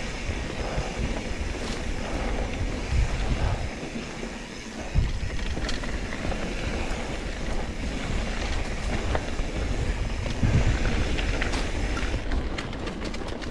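Wind buffeting an action camera's microphone during a fast mountain bike descent on dirt singletrack, over the bike's rolling and rattling. There is a quick run of clicks near the end.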